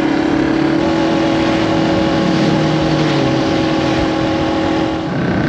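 Vehicle engine running steadily under way, its pitch stepping up slightly about a second in and dipping briefly near the end.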